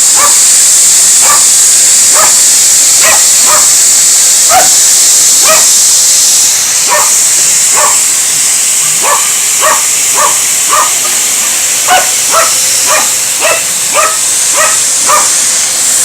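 A dog barking over and over, about one to two short barks a second, at a running vacuum cleaner whose steady loud hiss changes about six seconds in and comes back near the end.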